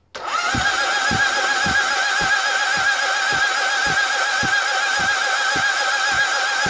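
Honda CB750 SOHC four-cylinder engine, cam cover off, turned over on its electric starter motor for about six and a half seconds: a steady cranking whine with a regular low beat about twice a second. It is being cranked to prime the oil pump, and the pitch never changes, which the owner takes as a sign that the pump has not picked up oil.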